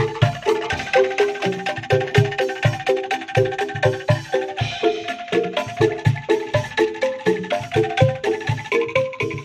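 Instrumental background music: a melody of short, quickly fading notes over a steady beat.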